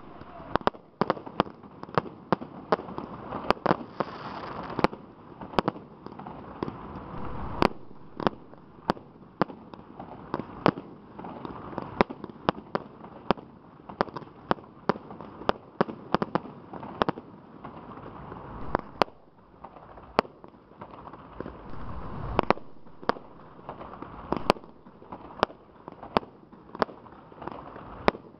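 Fireworks display: shells launching and bursting in quick succession, with sharp bangs coming irregularly about every second over a continuous background of noise.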